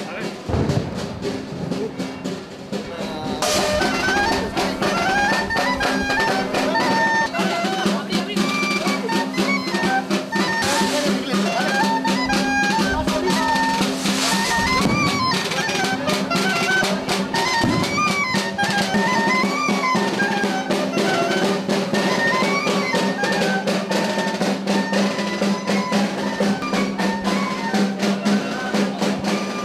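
Festive procession folk music: a drum beating time under a wind instrument playing a quick, lively melody over a steady low held tone. It gets louder about three and a half seconds in.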